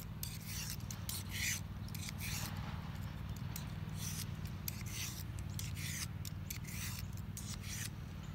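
Thin stainless knife blade drawn across a Smith's two-sided sharpening stone: short rasping scrapes, one stroke after another at an uneven pace, as the worn edge is sharpened back up.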